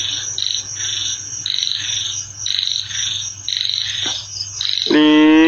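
Frogs calling: a run of about eight short, high-pitched bursts, irregularly spaced, over a steady high background tone.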